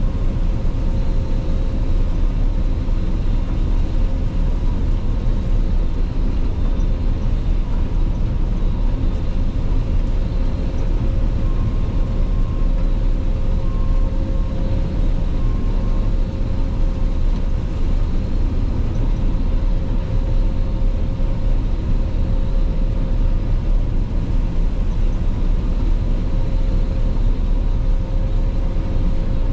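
Claas Lexion 480 combine harvester running steadily under load while harvesting rapeseed: a continuous low rumble with a few faint steady whining tones over it.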